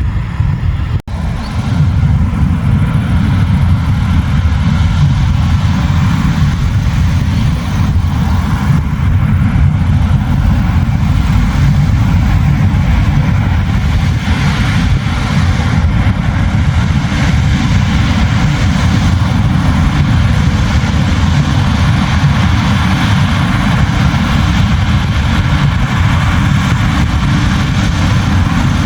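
New Holland CR10.90 combine harvester running steadily under load while threshing barley: a loud, even low rumble of the engine and threshing drum. The sound drops out briefly about a second in.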